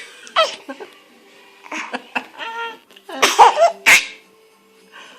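A woman hiccuping and a baby laughing at the hiccups in short bursts, the loudest burst about three seconds in.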